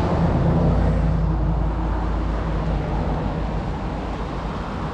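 Steady low rumble of a motor vehicle's engine with a faint hum, easing off slightly toward the end.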